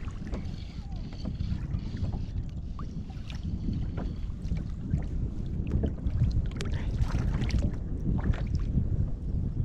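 Wind buffeting the microphone as a heavy, steady rumble, with water lapping and slapping against a plastic kayak hull and scattered light knocks and splashes.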